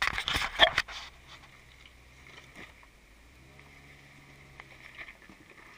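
Jeep Wrangler JK crawling over a loose rocky trail: a burst of loud crunching and clattering for about the first second, then the engine's faint, steady low hum at crawling pace.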